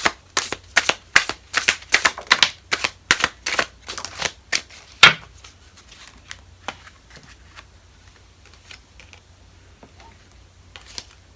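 Tarot cards being handled and shuffled: a quick run of sharp card snaps, about three a second, ending in a louder snap about five seconds in, then only a few faint clicks. The deck is brand new, so the cards are stiff.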